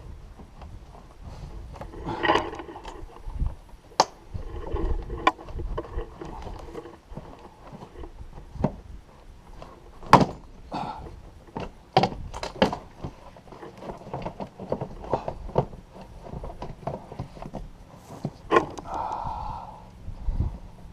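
Air-intake parts being taken apart by hand: a string of sharp clicks and knocks with rattling and scraping between them, as the air filter housing and its clamps are worked loose.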